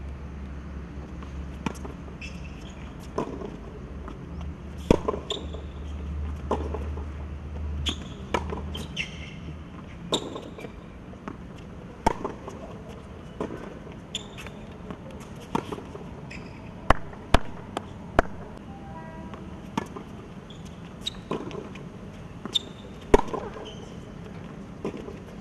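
Tennis ball being struck by rackets and bouncing on a hard court in a baseline rally: a string of sharp pops about every second and a half. A low rumble sits under the first nine seconds or so.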